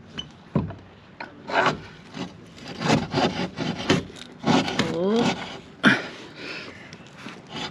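Irregular scraping and rubbing strokes as a Torqeedo 12.0 FP electric pod motor is pushed up into its fibreglass hull mount, its studs and housing rubbing against the hull.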